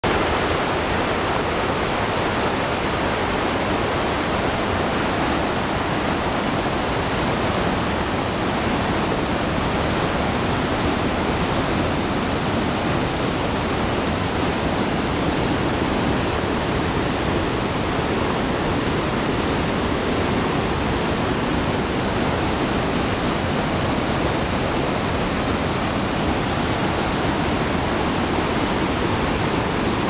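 Dam spillway and waterfall in heavy flow: a loud, steady rush of whitewater pouring down the concrete channel and over the falls.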